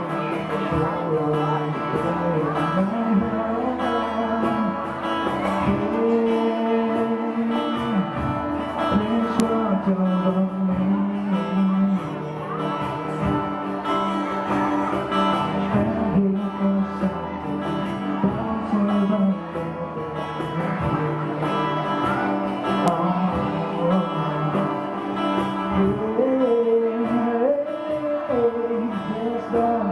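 Live band playing a song, with guitars and singing.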